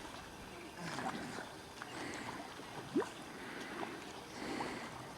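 Water sloshing and splashing, with a few scattered short sounds and one brief sharp one about three seconds in.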